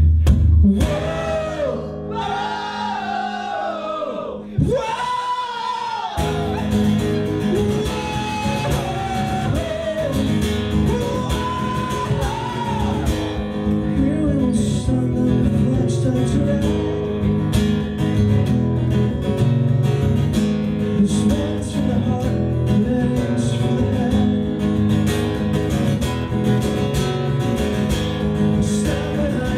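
Live punk song on acoustic guitar with a male voice: the singing opens over sparse accompaniment, and steady strumming comes in about six seconds in, with the voice carrying on over it.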